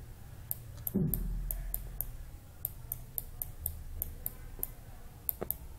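Stylus tapping and clicking against a tablet screen while handwriting, light irregular clicks a few times a second.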